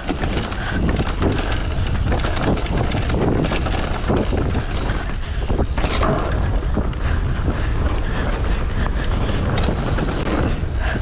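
Mountain bike riding down a dirt trail: steady wind buffeting the microphone, with tyres rolling over the ground and many short knocks and rattles as the bike goes over bumps.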